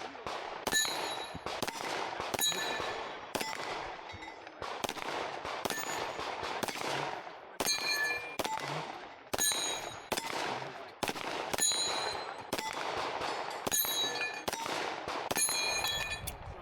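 Rapid 9mm pistol fire from a Canik Mete SFT, dozens of shots in quick pairs and short strings with brief pauses between target arrays, each crack trailing an echo. After several of the shots a steel target rings.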